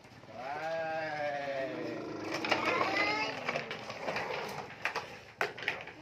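A small child's long, wavering cry that rises and falls in pitch, followed by a few sharp clacks of plastic toys knocking together near the end.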